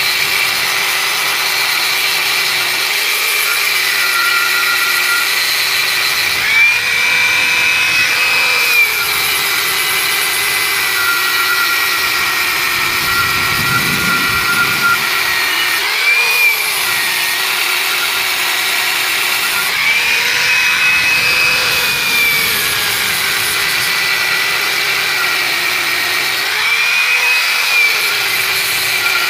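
Electric angle grinder grinding the face of a Hyundai Atoz's vented front brake disc to even out its worn, uneven surface. The grinder gives a steady whine that rises briefly in pitch four times.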